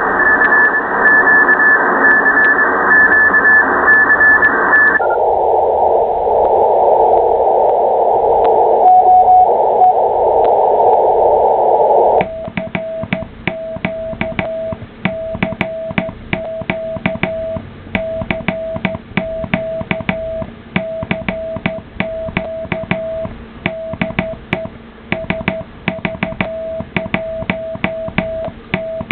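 Ham radio receiver hiss with a faint high Morse signal in it. The hiss narrows and drops in pitch about five seconds in. From about twelve seconds in, a Morse code CQ call is sent as a steady mid-pitched CW tone keyed on and off, with a sharp click at each keying.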